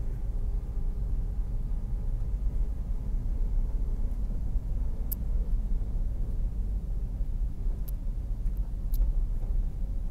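Car's road and engine rumble heard from inside the cabin while driving, a steady low drone with a few faint ticks in the second half.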